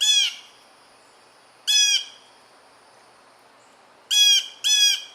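Blue jay giving its short, squawking 'jay' calls: four of them, one at the start, one about two seconds in, and two close together near the end.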